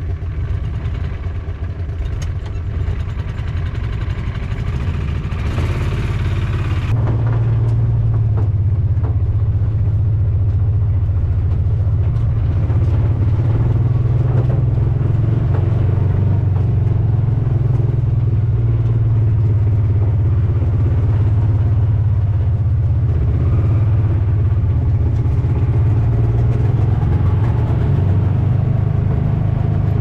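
Small utility vehicle's engine running, heard from inside its cab as it drives through snow. It grows louder over the first several seconds, then settles into a steady low drone.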